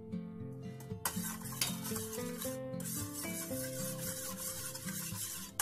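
Metal spoon stirring liquid seasoning sauce in a stainless steel bowl, starting about a second in, over background music.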